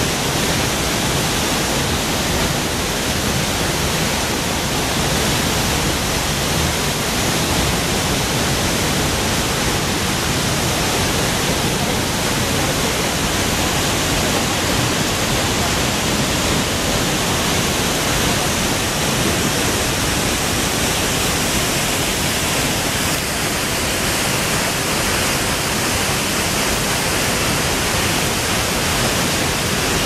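La Paz Waterfall, a tall cascade plunging down a cliff, making a loud, steady rushing of falling water.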